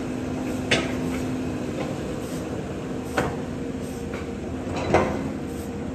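Caterpillar tracked excavator's diesel engine running steadily as it digs, with three sharp knocks from the bucket and arm working the soil: one about a second in, one a little past three seconds and one near five seconds.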